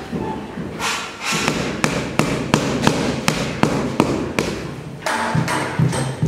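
Rubber mallet tapping a large glazed floor tile over and over, about two to three dull knocks a second, bedding the tile down into its mortar bed.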